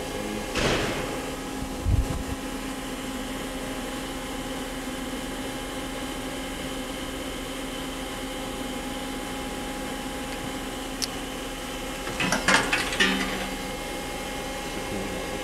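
Steady hum of a powered-up Star SV-32J CNC Swiss-type lathe, with a few steady tones in it. A short swish and a low thump come in the first two seconds, and about twelve seconds in there is a brief clatter of clicks and rattles.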